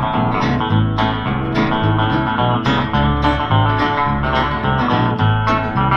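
Instrumental break in a 1960s country song: plucked guitar over a moving bass line, with no singing.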